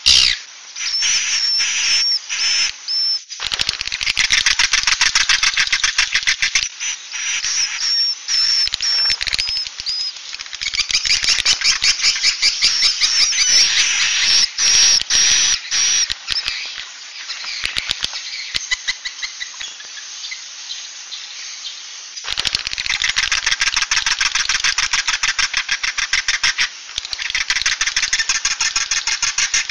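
Recorded edible-nest swiftlet calls, the kind played as a roosting lure: dense, rattling twitters made of many rapid clicks and chirrups, with short repeated high chirps near the start. It eases off for a few seconds past the middle, then builds again.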